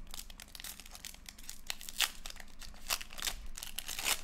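Foil wrapper of a Panini Prizm football card pack crinkling in the hands as it is handled and worked open: irregular sharp crackles, the loudest about two seconds in.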